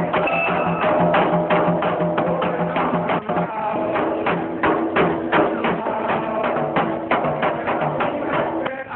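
Music with a rapid beat of sharp percussive strikes over held pitched tones, played back from a cassette tape recording.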